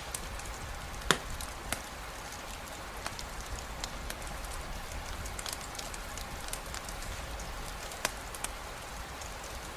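Steady rain falling, mixed with a crackling campfire: scattered sharp pops and ticks over the even hiss of the rain, the loudest pop about a second in and another clear one near the end.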